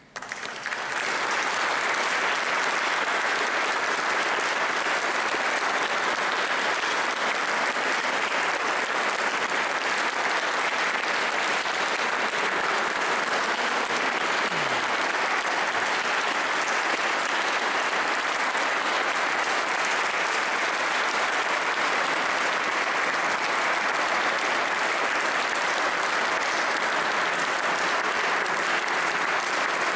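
Audience applauding: the clapping breaks out suddenly, swells over the first second or two, then holds steady and dense.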